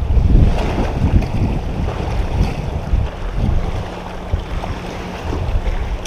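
Wind buffeting the microphone in uneven gusts, over small waves lapping at the lake shore.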